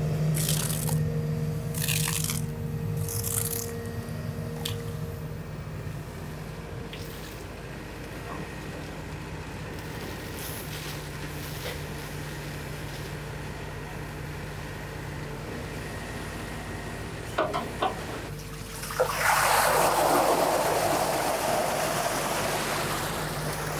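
Excavator's diesel engine running with a steady low hum while its bucket works in a pool of water and Orbeez. About nineteen seconds in comes a loud rush of sloshing, pouring water that lasts several seconds.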